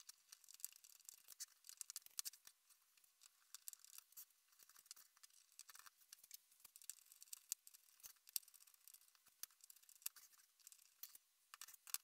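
Faint, irregular clicking and scratching of a hand screwdriver driving thread-forming B3 screws into hollow 3D-printed plastic columns, with small parts being handled on the bench.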